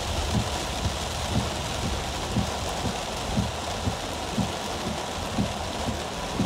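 Heavy rain drumming on a car's roof and windshield, heard from inside the car, over a low engine rumble. Windshield wipers thump about once a second as they sweep.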